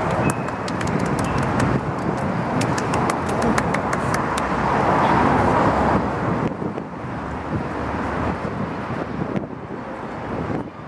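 Busy street ambience: steady traffic noise with wind buffeting the microphone, swelling for a couple of seconds about halfway through. A quick run of sharp clicks sounds over the first few seconds.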